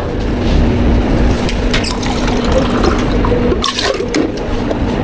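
Liquid running or being poured into a container, over a steady hum, with a couple of short knocks.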